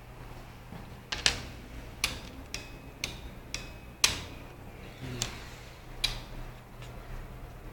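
A series of sharp clicks at uneven spacing, with a run of them about two a second in the middle, some carrying a brief high ring. A steady low hum lies underneath.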